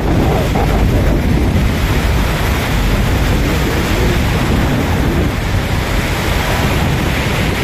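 Loud wind buffeting the microphone, mixed with the steady rush of the swollen, churning floodwater of the river.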